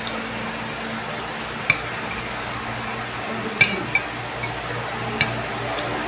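A metal spoon clinking against a ceramic bowl of rice and broth while someone eats: several sharp clinks, spread out, with the loudest about halfway through.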